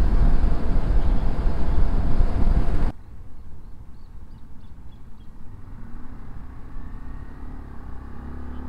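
Heavy wind and road noise from a motorcycle at highway speed, cut off abruptly about three seconds in. Then a much quieter motorcycle engine running at low town speed, with a few faint high chirps and the engine's pitch rising near the end as it pulls away.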